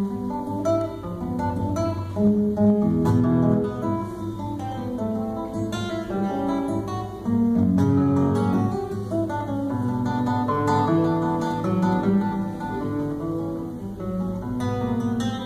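Solo classical guitar: a continuous flow of plucked melody notes over low bass notes, growing louder about seven seconds in.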